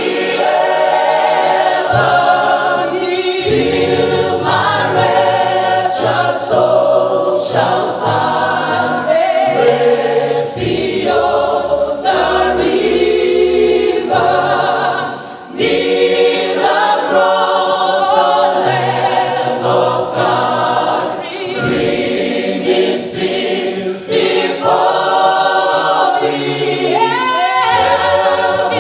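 Church choir singing a gospel song in several voices, with a brief pause between phrases about fifteen seconds in.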